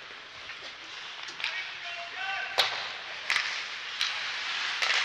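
Ice hockey play on the rink: skates scraping over the ice and several sharp clacks of sticks and puck, the loudest about two and a half seconds in. A brief shout comes just before it.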